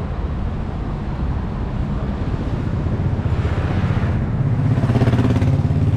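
Street traffic: a motor vehicle's engine grows louder from about three seconds in and runs steadily and low near the end, as it passes close by.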